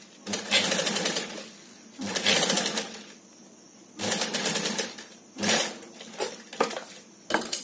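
Industrial lockstitch sewing machine stitching a zipper strip onto bag fabric in short runs: three bursts of about a second each with pauses between, then a brief fourth run and a few light clicks near the end.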